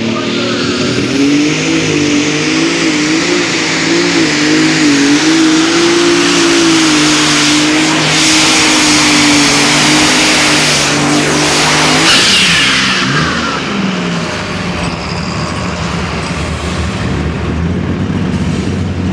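Competition pulling vehicle's engine running loud at full throttle under load during a pull, its pitch wavering. About twelve seconds in the power drops off with a falling whine, and the engine settles to a lower, quieter run.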